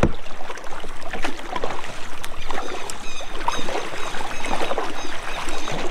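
Kayak being paddled: the paddle blades dipping and splashing in the water, with water washing along the hull.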